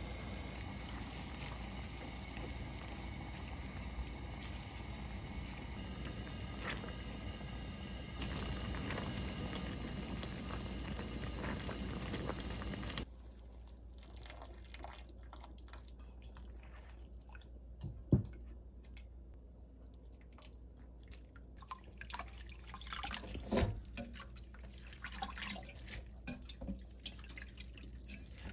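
Pot of water at a steady boil on a gas stove with the chwinamul blanching in it. About halfway the sound drops suddenly. Then water drips and trickles as the blanched greens are lifted out with a metal utensil, with two sharp metal knocks.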